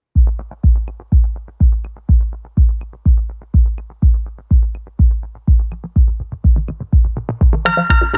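Electronic music: a deep kick drum on a steady beat of about two per second, with light ticks between the beats. A bright synthesizer chord comes in near the end.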